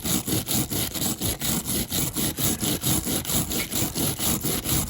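Hand-held metal wire brush scrubbing a diecast metal model car body in rapid back-and-forth strokes, about four to five a second, cleaning off the remaining bits.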